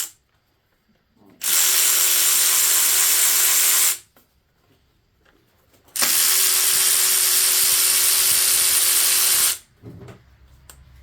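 A power tool, a drill, driver or air ratchet, running in two loud bursts, the second longer, each starting and stopping abruptly, while 10 mm bolts are taken out of a Chevy 5.3 V8 during teardown.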